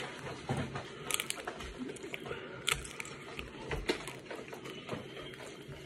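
Biting and chewing a fruit roll-up wrapped around ice cream, the candy made crunchy by the cold: scattered short crisp crackles, a cluster about a second in and the sharpest a little under three seconds in.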